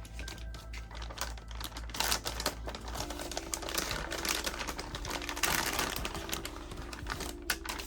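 Hands handling boxed computer parts and their packaging: a dense, irregular run of clicks and rustling, loudest in the middle, over background music.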